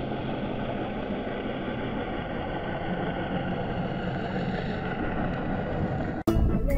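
Steady, muffled underwater rush from a camera recording below the surface, with a faint low hum in it. About six seconds in it cuts off and music starts abruptly.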